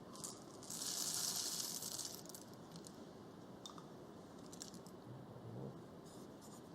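About 18 grams of whole coffee beans poured out in a short rattling rush lasting about a second and a half, then a few light clicks.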